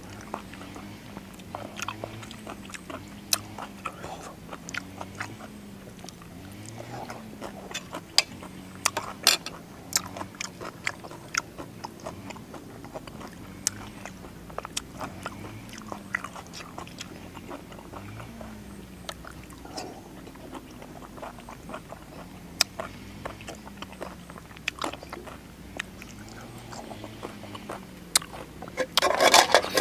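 Close-up mouth sounds of a man eating with his fingers: chewing and biting with many short, sharp smacks. A short burst of clatter comes near the end.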